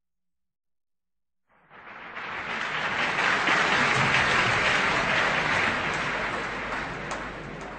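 Concert audience applauding. It starts about a second and a half in, swells, and then slowly dies down.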